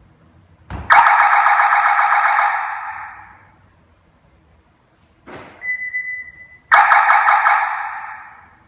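Hollywood Siren III car security siren sounding its answerback: a thump about a second in, then a loud warbling tone that fades away over two to three seconds. A few seconds later comes a short sweep and a steady beep, then a second warbling tone that fades out near the end, the siren's confirmation of a remote lock or unlock command.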